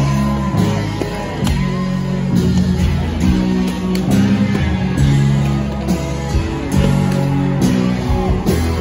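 Live rock band playing, with electric guitars and bass guitar to the fore, heard from among the audience.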